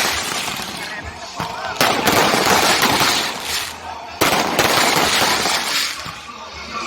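Fireworks exploding in rapid crackling volleys, a new burst setting off suddenly about two seconds in and again about four seconds in, each fading away over a couple of seconds.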